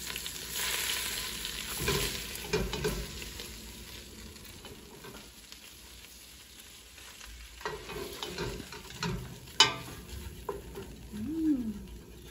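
Butter and flour sizzling in a stainless steel pot while a spatula stirs and scrapes them: a roux cooking for a cheese sauce. The sizzle is strongest for the first few seconds, then fades. About ten seconds in there is a sharp knock of a utensil against the pot.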